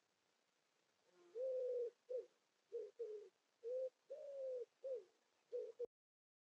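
A pigeon cooing: a run of about seven soft, low coos, the first and fifth drawn out longer than the rest. The run cuts off abruptly near the end.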